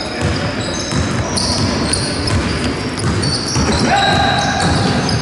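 Basketball dribbled on a wooden sports-hall floor, with footsteps and sneakers squeaking as players run up the court, and voices calling in the echoing hall.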